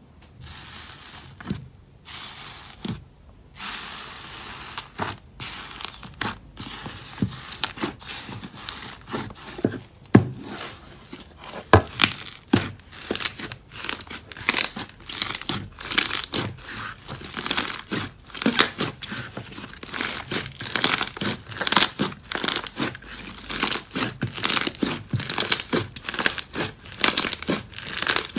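Slime being squished and worked by hand: a run of quick crackling pops and clicks, sparse at first and coming faster and louder from about ten seconds in.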